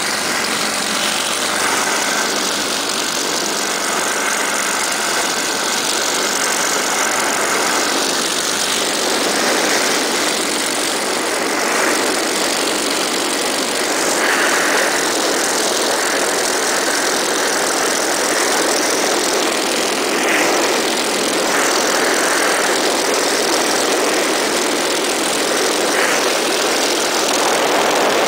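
Light propeller aircraft's piston engine and propeller running at takeoff power, mixed with heavy wind rush on the microphone in the cockpit, steady through the takeoff run and climb.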